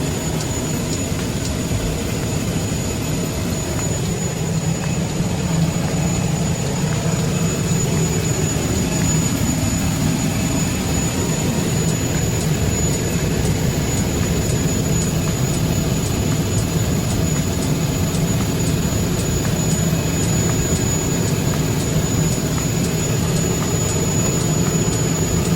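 Turboprop aircraft engine running steadily at high idle during a ground run after a compressor wash, with a constant high turbine whine over a deep hum.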